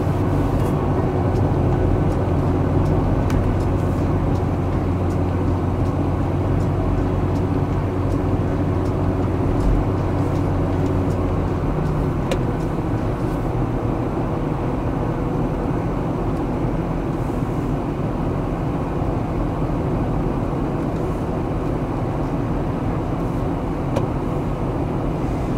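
Toyota 4Runner driving, with steady engine and road noise heard from inside the cabin; the low engine hum drops away about halfway through.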